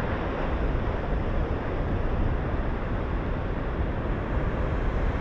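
Rough sea surging against the shore, with wind buffeting the microphone in a steady, gusty rumble.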